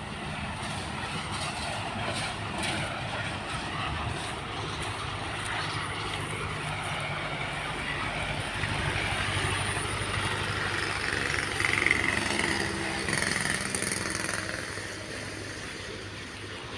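A vehicle engine running steadily with a low, even hum, under a continuous hiss of wind and road noise.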